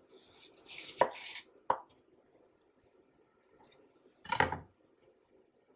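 Chef's knife slicing through an onion and knocking twice on a wooden cutting board about a second in, then a louder thump a little after four seconds.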